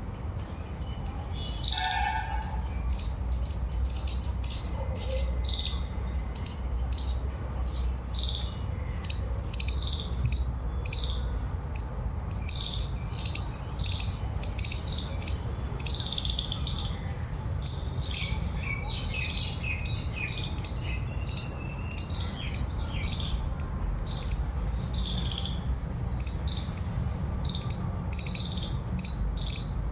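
Outdoor birdsong: many short, repeated bird chirps, with a busier run of twittering a little past halfway, over a steady high-pitched insect drone. A low rumble runs underneath.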